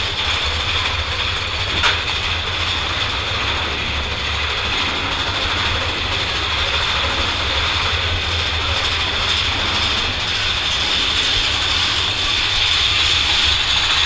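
Big Thunder Mountain Railroad mine train roller coaster running through a tunnel: a steady rumble and rattle of the cars on the track, with a single sharp click about two seconds in.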